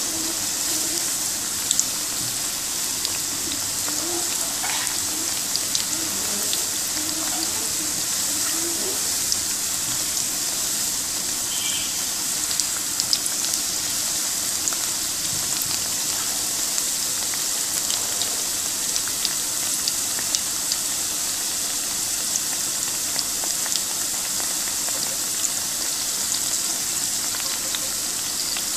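Pakoras deep-frying in hot oil in a karai: a steady sizzle with scattered small pops and crackles.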